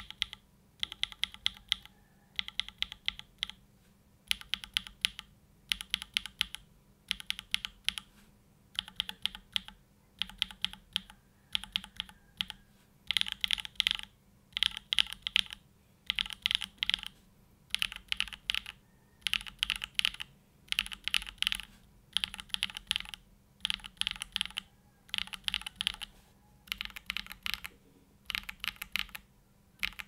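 Typing on a Mode Envoy custom mechanical keyboard built with a carbon-fibre plate, mid foam, hand-lubed Gateron Pure Berry switches and GMK Olive keycaps. The keystrokes come in quick bursts of about a second each, with short pauses between bursts.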